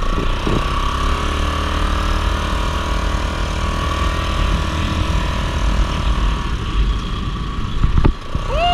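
Yamaha Grizzly 660 ATV's single-cylinder four-stroke engine running steadily as it is ridden, with a brief knock near the end.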